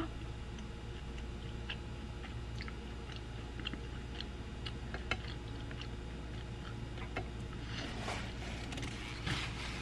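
A person chewing a bite of pizza with the mouth closed: faint, scattered small mouth clicks over a steady low hum, with a short rustling noise near the end.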